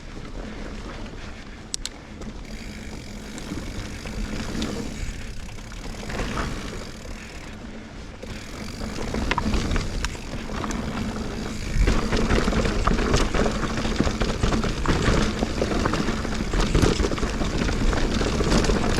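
Mountain bike ridden along a dirt trail: tyres rolling over the ground with the bike rattling and clicking over bumps. It grows louder and rougher about twelve seconds in.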